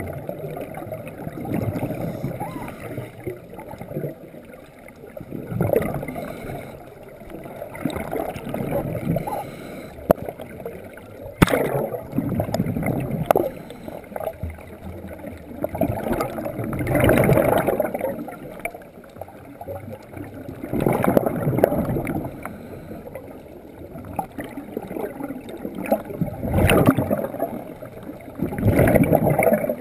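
Scuba regulator exhaust bubbles rumbling and gurgling underwater, in surges every few seconds with each exhaled breath. A sharp knock is heard about eleven seconds in.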